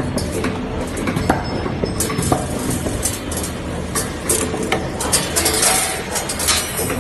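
2D CNC wire bending machine running: a steady motor hum under irregular metallic clicks and clacks as it feeds and bends steel wire.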